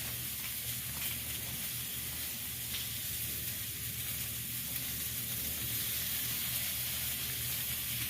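Food sizzling as it fries: a steady hiss with faint crackles over a low hum.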